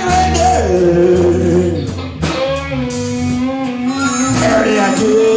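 Electric blues music: an electric guitar plays held, bending notes over a steady bass line, with short sharp hits.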